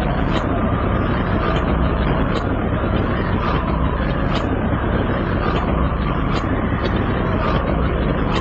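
Steady, loud rumbling noise with no clear tone, flecked with faint crackles.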